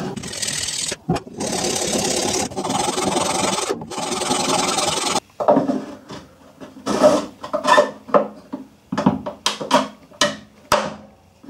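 Sanding a corner of a 3D-printed jet pump housing: a steady rasping scrape in several stretches with short breaks, for about the first five seconds. Then a run of short knocks and scrapes as the plastic pump housing is pushed into and fitted against the carbon fibre hull.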